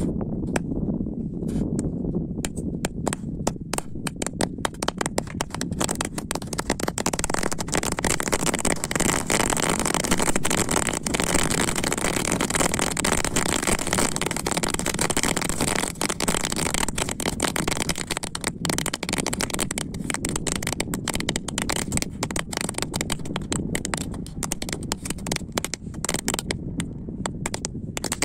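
A panful of chatpatiya crackling crackers burning in fuel, going off in a dense, rapid crackle of small pops that builds over the first couple of seconds and thins out near the end.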